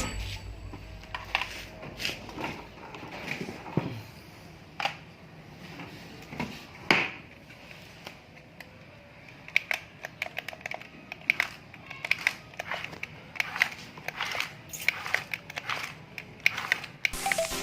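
Toy RC dump truck and excavator working in loose soil: irregular crunching, scraping and small plastic knocks, coming faster in the second half, with one sharper knock about seven seconds in.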